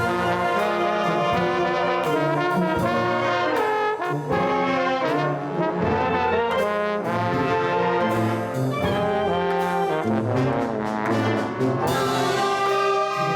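Band music led by brass, with trombones and trumpets playing a full multi-part passage at a steady loud level.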